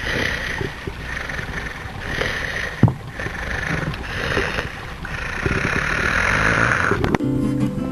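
Rushing noise over a low rumble, swelling and fading in several surges, with a sharp click about three seconds in; music with held notes comes in near the end.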